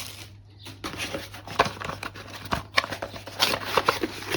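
Packaging rustling and crinkling in short irregular rustles, with small knocks, as boxed parts are handled and unwrapped.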